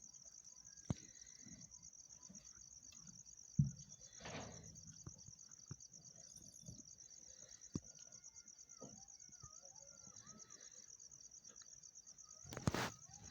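Faint, steady high-pitched cricket trill, with a few soft clicks and short faint chirps scattered through it.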